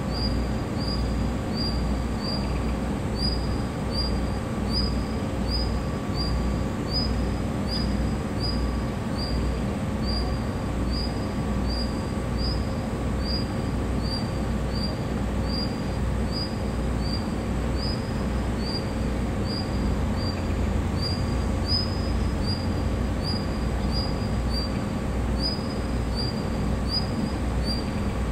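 Diesel railcar engine running with a low throbbing rumble that pulses about twice a second over a steady hum. A short high chirp repeats about twice a second.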